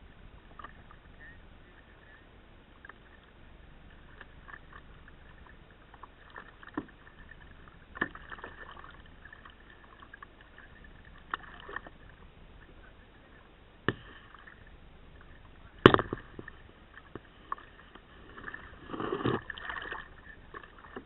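Kayak paddling on calm river water: paddle blades dipping and splashing, with scattered sharp knocks on the plastic kayak. The loudest knock comes about three-quarters of the way through, followed by a longer burst of splashing near the end.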